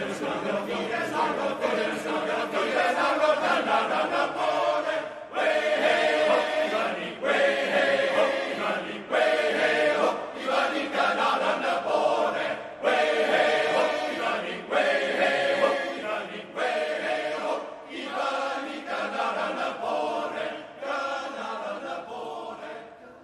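Male voice choir of tenors and basses singing in full harmony, in short phrases broken by brief gaps about every one to two seconds. The singing stops near the end.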